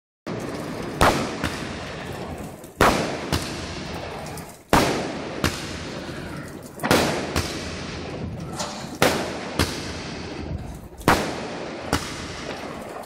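Aerial fireworks going off: sharp, loud bangs about every two seconds, many followed by a smaller bang about half a second later, over a steady background din.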